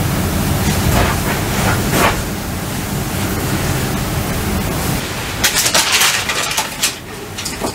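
Steady background hiss, with a low hum in the first couple of seconds. A little past the middle comes a short flurry of rustling and light knocks as a person sits down and handles a garment.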